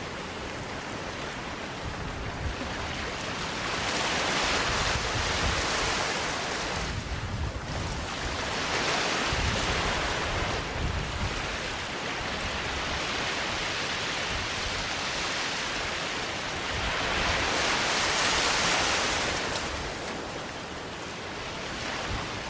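Sea waves washing onto a sandy beach, the surf swelling and ebbing in slow surges, three of them louder, with a low gusty rumble of wind on the microphone underneath.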